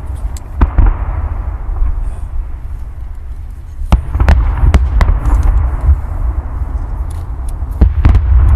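Fireworks going off: scattered sharp bangs, a pair about half a second in, a quick run of four near the middle, and two more near the end, over a continuous low rumble.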